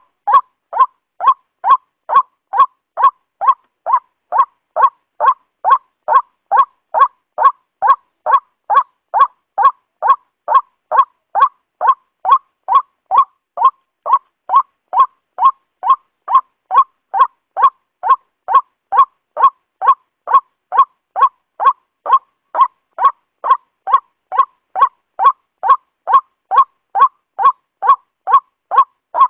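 Waterhen (pani murgi) call, one short note repeated over and over in an even, unbroken rhythm of about two calls a second.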